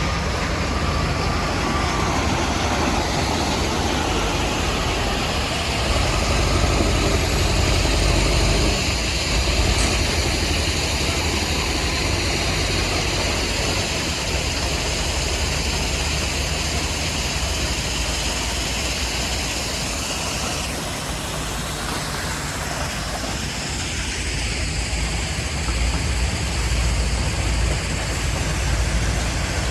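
Heavy diesel worksite machinery running steadily: a loud low engine drone under a constant noisy rush and rattle, swelling slightly now and then.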